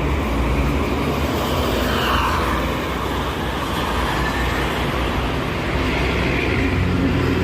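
Steady toll-road traffic: buses and cars passing at speed, with a continuous rush of tyre and engine noise and a low engine hum. One pass swells a little about two seconds in.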